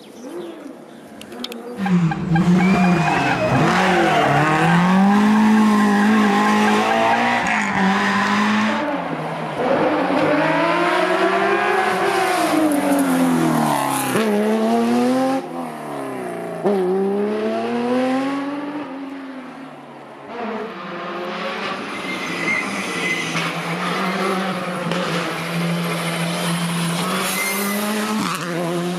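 Rally cars' engines revving hard, their pitch climbing and falling again and again with gear changes and braking for corners, as several cars pass one after another.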